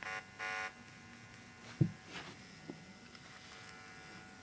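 Speakers driven by a homemade TDA2616 amplifier buzzing in two short bursts at the start, over a faint steady hum. A single sharp thump comes about two seconds in.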